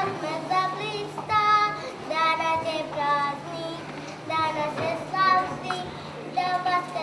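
A young girl singing solo, holding sung notes one after another with short breaks between phrases.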